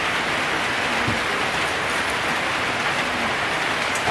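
A steady, even hiss of noise that does not change.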